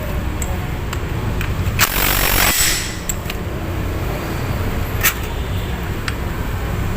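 Scattered sharp metallic clicks and clinks of hand tools and clutch parts being handled, with a louder hissing or rattling burst lasting about a second, about two seconds in, over a steady low background rumble.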